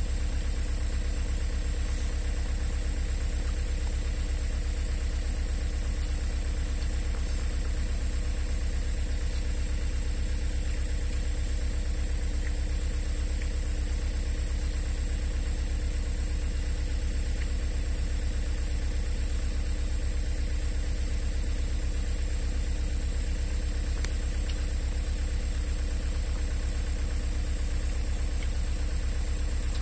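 Excavator's diesel engine idling steadily with an even low throb.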